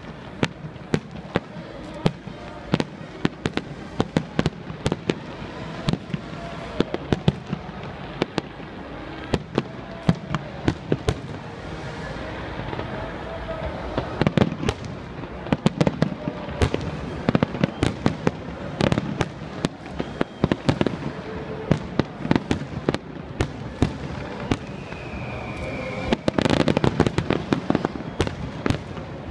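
Aerial fireworks display: a rapid, continuous barrage of shell bursts and crackling bangs, a fraction of a second apart, with the densest, loudest volley near the end.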